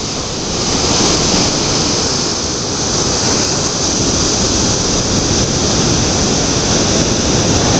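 Ocean surf breaking and washing up the beach, a steady loud rush.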